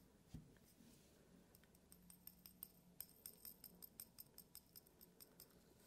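Granulated candle wax poured from a small glass into a tall glass: a faint, dense patter of fine ticks as the grains trickle in. A soft knock comes just before the pouring starts.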